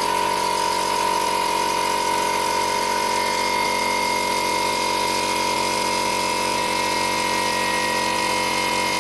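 Small direct-drive 24-litre air compressor running steadily, its motor and pump filling the tank as pressure builds toward the cut-out at just over 90 PSI.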